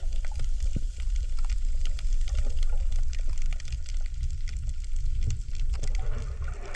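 Underwater sound on a coral reef: a low rumble of water moving about the microphone, with a dense, fine crackling of small clicks throughout. This is the "michi-michi" reef crackle that is said to be the coral breathing.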